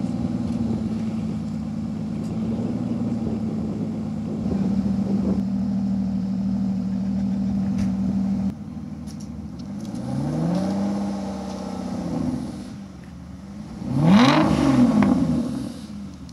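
Aston Martin Rapide's V12 engine idling steadily, its note dropping about eight seconds in. Then it is blipped twice, rising and falling in pitch, with the second rev near the end the sharpest and loudest.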